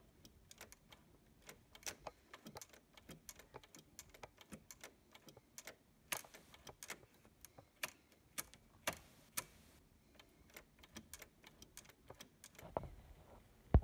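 Irregular small clicks and rattles from the pinch roller assembly of a Sony TC-730 reel-to-reel deck as it is pushed by hand up and down and side to side, with a couple of short scraping rubs and a sharper click near the end. The roller arm is being worked loose after sticking, the fault that kept the deck from playing.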